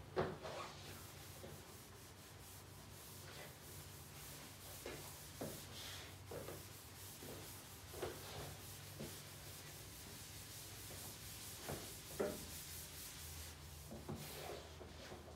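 Eraser rubbing and scrubbing across a chalkboard, wiping it clean, with a few light knocks against the board.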